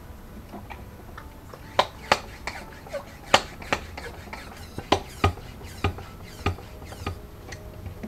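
Hand pump on a Motive Products brake power bleeder being stroked to pressurise the system to about 15 psi: a series of about a dozen sharp clicks and knocks, roughly two a second.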